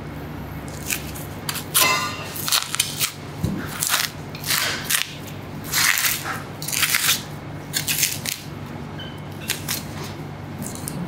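A butcher's knife cutting through the fat and membrane of a large slab of wagyu beef in a series of short, sharp strokes, busiest through the middle of the stretch, with a few more near the end.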